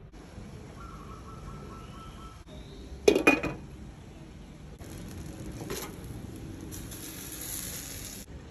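Glass pot lid with a metal rim set down on a steamer, clattering in a few quick metallic clinks about three seconds in. A steady hiss of steam follows from about five seconds in.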